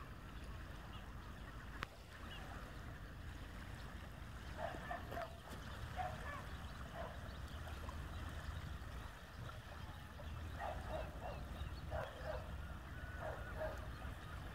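Birds calling in short clusters of calls, a few at a time, scattered through, over a steady low background rumble.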